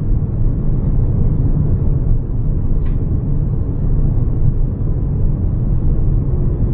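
Steady low rumble of an Airbus A320 airliner in flight, heard inside the cabin: engine and airflow noise.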